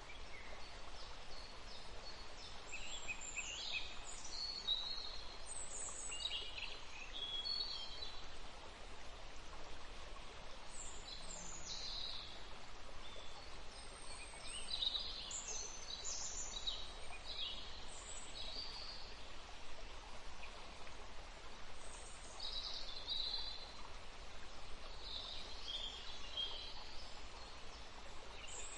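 Forest ambience: the steady rush of a stream, with birds calling in short high chirps and trills that come and go throughout and pause briefly twice.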